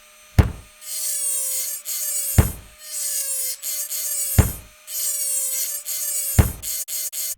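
Small dental-type rotary drill whirring, with a wavering whine and a hiss, cut into a beat with a deep drum thump every two seconds. A few quick ticks come near the end.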